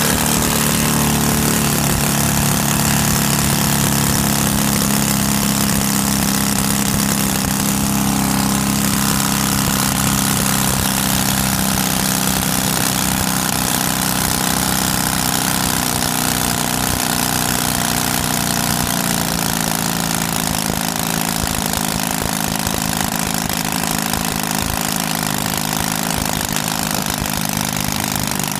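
Valach 120 B2-4T twin-cylinder four-stroke model aircraft engine running at a steady idle, with its propeller turning.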